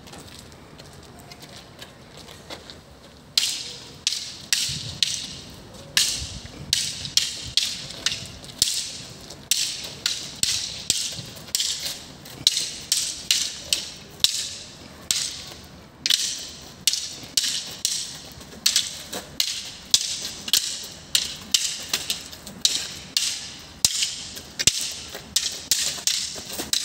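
Two fighting sticks clacking against each other in quick, irregular strikes, often several a second, beginning a few seconds in.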